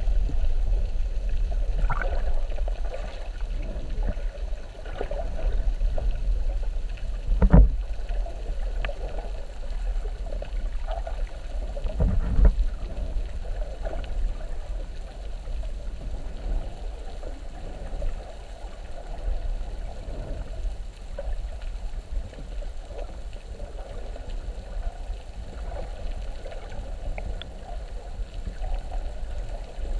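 Muffled underwater sound picked up by a snorkeller's camera held below the surface: a steady low rumble of moving water, with a dull thump about seven and a half seconds in and a weaker one about twelve seconds in.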